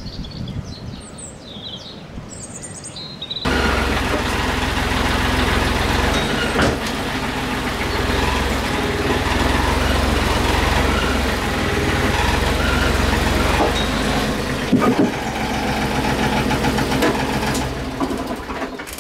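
Birds chirping over a quiet background, then about three and a half seconds in a sudden change to loud wind buffeting the microphone with a heavy low rumble, broken by a couple of faint knocks.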